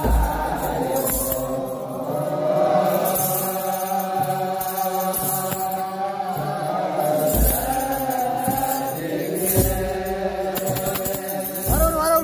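A large men's choir singing Ethiopian Orthodox liturgical chant (zema) together. A kebero drum gives slow, widely spaced deep beats, and handheld sistra (tsenatsel) jingle in rhythm. Near the end, a voice glides up in pitch.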